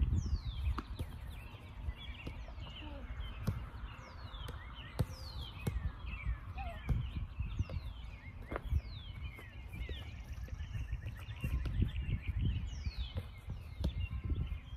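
Wild birds calling outdoors, short whistled notes sliding down in pitch every second or two, over a steady low rumble. A few dull thuds of a soccer ball being kicked and trapped on grass come through now and then.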